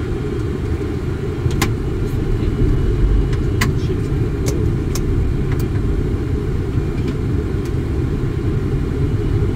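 Cockpit noise of a Boeing 747 on approach: a deep, steady rumble of airflow and engines, with a few sharp clicks scattered through the first half.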